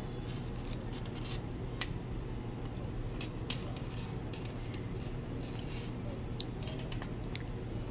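Faint clicks and scuffs of a charging cable being pushed into a soft animal-shaped cable protector, the sharpest click about six seconds in, over a steady low hum.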